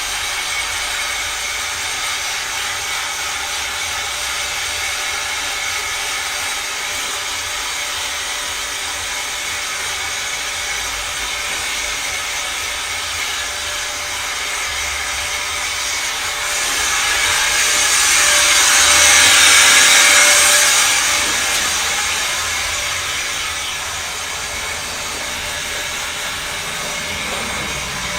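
Electric air blower running steadily, blowing dust out of computer parts during a clean. The rushing hiss swells louder for a few seconds about two-thirds of the way in, then settles back.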